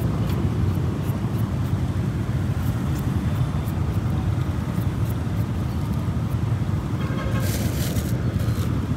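Steady low outdoor rumble, with faint scraping ticks from a hand-held serrated peeler taking the skin off a fruit. A brief crinkly rustle comes near the end.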